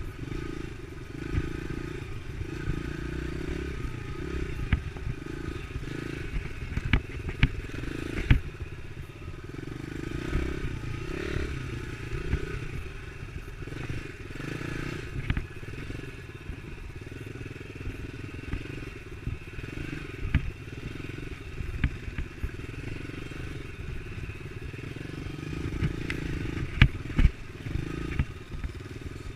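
Dirt bike engine running steadily while riding a rough trail, with sharp knocks and rattles from bumps, a cluster about seven to eight seconds in and another near the end.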